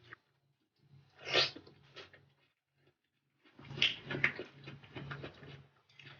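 Close-miked eating sounds: a short, loud breathy intake about a second in, then after a pause, steady chewing with many small wet clicks.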